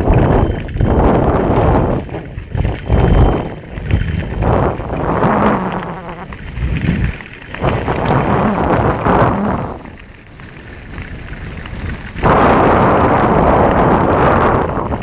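Wind buffeting the microphone during a fast descent on a gravel forest track, surging and dropping, with the rattle of travel over the gravel beneath it. About twelve seconds in the buffeting turns steady and loud.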